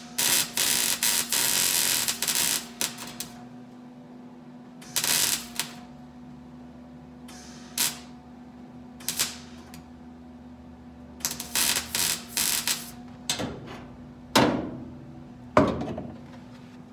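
Wire-feed (MIG) welder tack-welding new sheet-metal trunk pan to the car body: crackling arc bursts, the first about two seconds long, then a string of short tacks with pauses between them. A steady low hum runs underneath.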